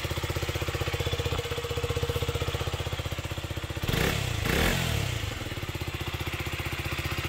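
KTM RC125's single-cylinder four-stroke engine idling steadily, blipped twice by the throttle about four seconds in, the pitch rising and falling back each time before it settles to idle again.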